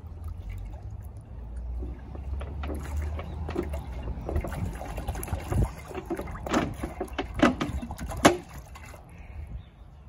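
Water glugging as it pours from a plastic soda bottle into a glass bowl of blue slime-powder solution, with a run of sharp clicks and crackles about halfway through.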